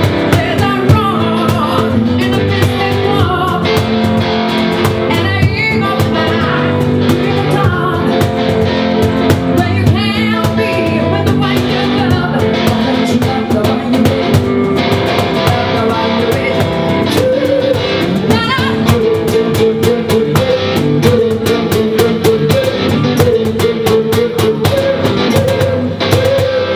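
Live band music: a woman singing over a cajon beating out the rhythm, with instrumental accompaniment.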